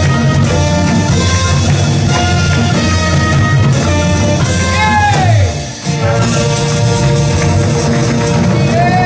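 A live band with trumpet, keyboard and guitars playing an upbeat song. About five seconds in, a falling pitch slide leads into a brief break of under a second, and then the band comes back in.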